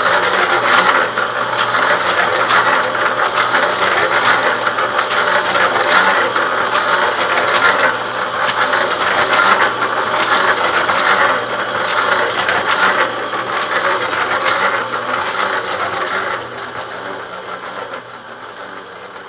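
Royal Chef split-tub tabletop washing machine running a wash, its motor and belt drive humming and rattling. The sound swells and eases every couple of seconds and grows quieter over the last few seconds.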